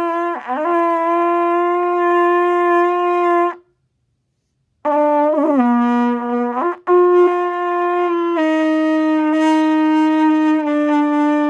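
Trumpet blown in long held notes: a first note with a quick dip in pitch just after the start, a short pause, a shorter note that slides down lower, then a long note that steps down slightly twice before cutting off near the end.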